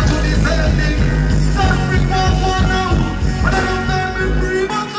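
Loud dancehall music over a concert sound system, with a heavy bass line and melodic lines on top; the deep bass cuts out near the end.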